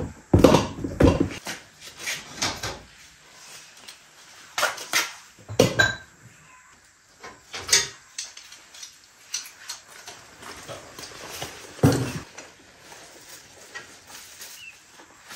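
Kitchenware being put away by hand: irregular clatters, knocks and clinks of dishes and utensils, some set onto a wire dish rack. The clatters come in loose clusters a second or several apart.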